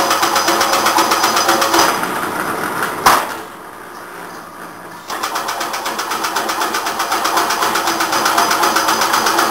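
Automatic chain-link mesh-weaving machine running with a fast, even mechanical clatter. About three seconds in there is a sharp knock. The machine then runs quieter for about two seconds before the clatter picks up again.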